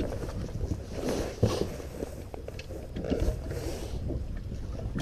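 Wind buffeting the microphone on an open boat deck, with a few light knocks and handling sounds as a live-well hatch lid is lifted open.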